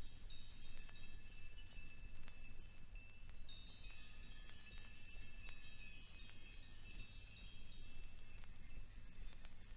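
Quiet, sparse ringing of small metal chimes in free-improvised percussion: high, thin tones struck now and then and left to ring, growing busier about a third of the way in. A low steady hum lies underneath.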